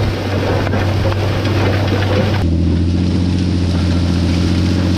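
John Deere 8300 tractor's six-cylinder diesel running steadily under load, pulling a disk harrow, with a rushing noise over it. About halfway through, the sound changes abruptly to a cleaner, steadier low engine hum.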